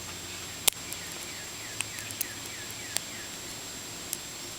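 Small sharp clicks of a lock pick working the pins inside a gummy Brooks padlock, five or so scattered through the few seconds, with a run of faint short falling chirps in the middle, under a steady hiss.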